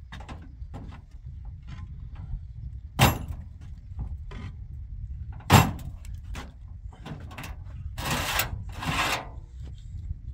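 Concrete blocks being handled in a pickup truck bed: two sharp heavy knocks of block on block, a few lighter clicks, then two longer scrapes near the end, over a steady low rumble.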